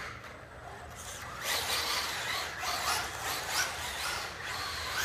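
Traxxas Rustler VXL electric RC truck's brushless motor whining, its pitch rising and falling with the throttle. It gets louder about a second and a half in as the truck speeds up.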